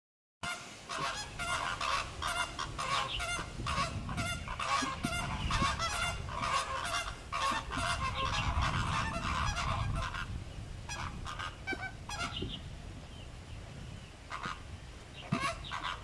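A flock of flamingos honking in a rapid, overlapping chorus, thinning after about ten seconds to a few scattered honks. A low rumble runs underneath.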